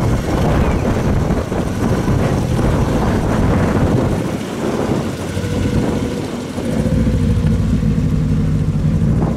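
A car engine running close by, uneven for the first few seconds and then settling into a steady idle.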